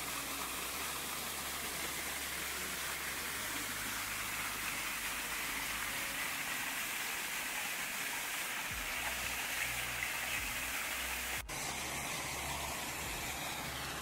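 Small waterfall cascade rushing steadily, an even hiss of falling water. The sound drops out for an instant about eleven and a half seconds in, then the same rushing carries on.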